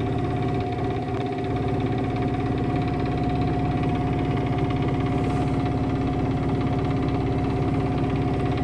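Sailing yacht's auxiliary engine running steadily as the boat motors along under bare poles in a calm.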